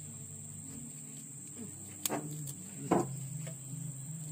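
Insects chirring steadily at a high pitch, with two sharp clicks about two and three seconds in.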